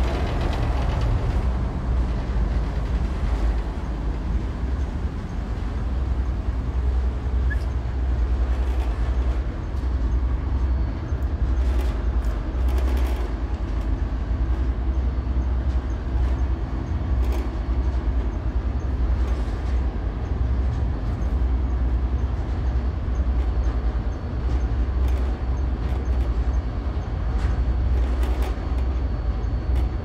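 Steady low engine drone of a cargo ship under way, heard on the open deck, with a few faint brief knocks.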